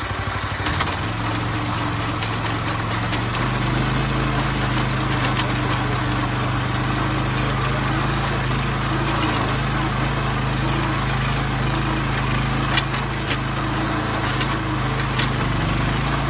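Little Beaver earth drill's gas engine running steadily under load as its auger bores a post hole in loose backfill. The engine note picks up about a second in and then holds steady, with a few faint clicks.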